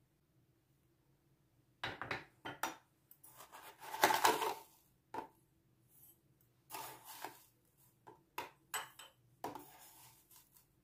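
Metal spoon clicking and scraping against a tin and a ceramic mug while granulated sugar is scooped. It starts about two seconds in, with the loudest, rustling scrape at around four seconds.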